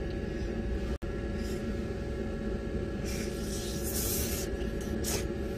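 Diesel parking heater running with a steady low hum, loud enough that the owner calls it rather noisy; over it, short hissing slurps of noodles being eaten, about three seconds in and again near the end.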